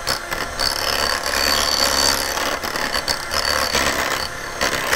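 Electric hand mixer running, its twin beaters whipping a thick cream cheese mixture in a glass measuring jug. The motor gives a steady high whine, and the beaters scrape and click against the glass.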